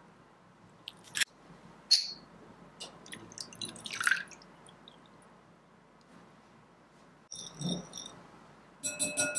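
Cooking sounds at a glass mixing bowl. Two sharp clicks, then a brief pour of vegetable oil and milk onto egg yolks about three to four seconds in. Near the end, a metal utensil beats the mixture with quick clinks that ring against the glass bowl.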